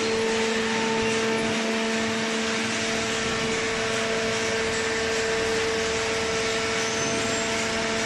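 Hydraulic cardboard baler's electric motor and hydraulic pump running, a steady machine hum with a constant whine over an even hiss.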